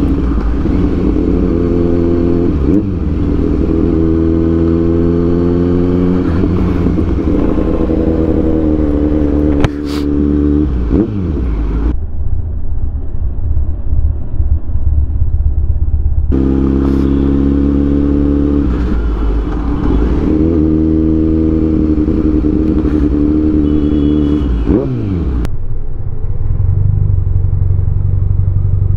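Kawasaki Z900 inline-four engine heard from the rider's seat, revving up and easing off again and again at low town speeds. A sharp crack comes about ten seconds in, and a quieter stretch of lower, duller running follows. It settles into a steady low note near the end.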